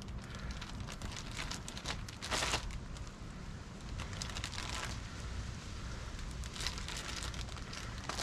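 Clear plastic zip-top bag crinkling and rustling as flounder fillets are handled and packed into it, in irregular bursts with a louder stretch about two seconds in, over a steady low rumble.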